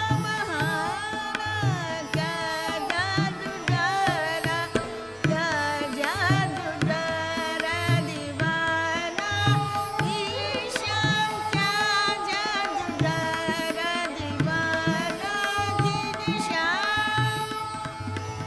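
Hindustani light-classical dadra: tabla keeping a steady rhythmic cycle of strokes, with sarangi playing gliding, ornamented melody over a steady tambura drone.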